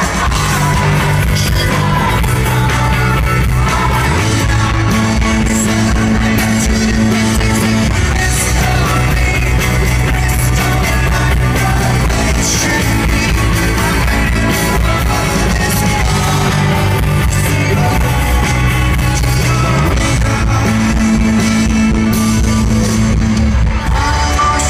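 Rock band playing live: singing over guitars and a bass line that steps between held notes every couple of seconds.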